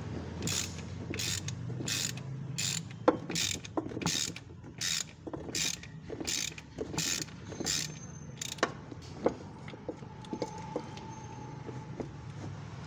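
Ratchet wrench with a 12 mm socket being worked on the Hyundai Getz's timing belt tensioner bolt: about a dozen ratcheting strokes, roughly one every 0.7 seconds, stopping about eight seconds in, followed by a few scattered lighter clicks.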